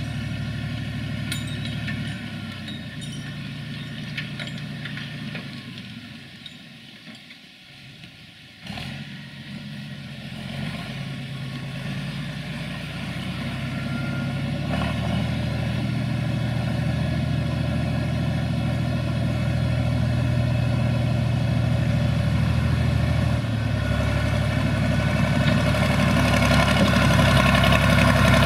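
SAME Laser 110 tractor's diesel engine running under varying throttle, its pitch stepping up and down several times. It drops quieter for a couple of seconds about six seconds in, comes back suddenly, then grows steadily louder toward the end.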